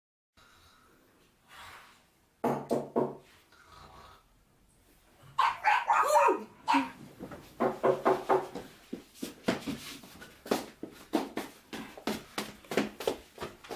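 Dog barking in short, sharp, repeated barks that quicken into a rapid run in the second half, with a whining yelp that falls in pitch about six seconds in.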